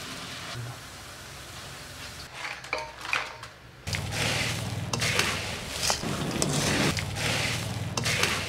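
Beaten rice (poha) frying in hot oil in a mesh strainer, sizzling steadily. From about four seconds in, a louder rustle of dry, crispy phurandana snack mix being tossed with a spatula in a steel bowl, with clinks of the utensil against the metal.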